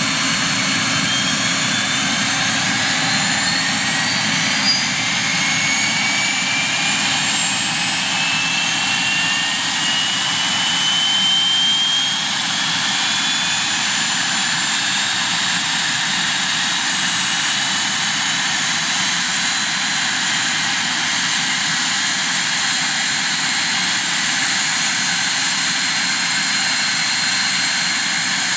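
Cessna Citation II's Pratt & Whitney Canada JT15D turbofan engines running close by, with a whine that rises in pitch over the first dozen seconds and then holds steady. A brief knock about five seconds in.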